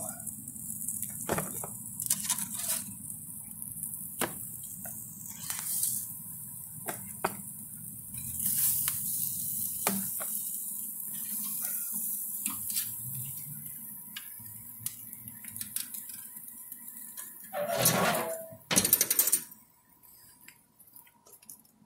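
Metal grill tongs and spatula clinking and scraping against the grill grates and ribs as the ribs are lifted off, as scattered short clicks over a steady hiss. There is a louder burst of noise near the end.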